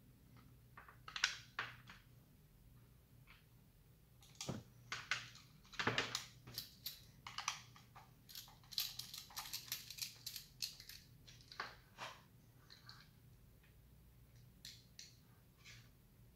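A small hand screwdriver drives M3 screws into a plastic housing, making irregular light clicks and scrapes of the driver tip and screws against the plastic. It is busiest through the middle stretch.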